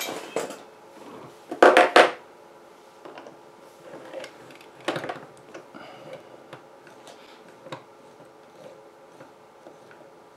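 Metal hand tools clattering on a tabletop, with a cluster of loud knocks about two seconds in, then scattered light clicks and taps of a tool working at the wheel of a radio-controlled crawler truck.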